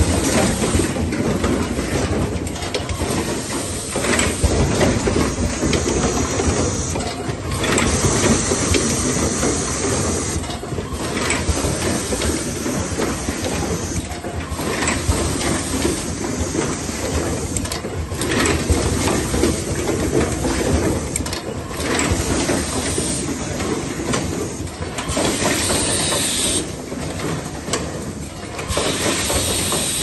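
Automated power-cord assembly machine running: steady mechanical clatter of the conveyor and stations, with short bursts of compressed-air hiss from its pneumatic cylinders every few seconds.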